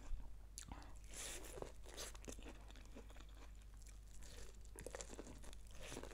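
Faint close-up eating sounds: irregular crunchy bites and chewing, with scattered small mouth clicks.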